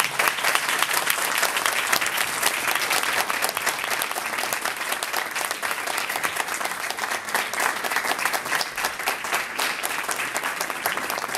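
Audience applauding steadily, many people clapping at once in a large lecture hall.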